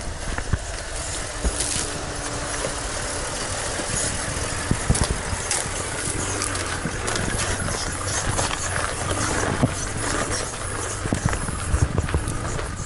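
Nissan Patrol 4WD crawling slowly up a rocky, rutted dirt track: the engine runs low and steady while stones knock and crunch under the tyres now and then.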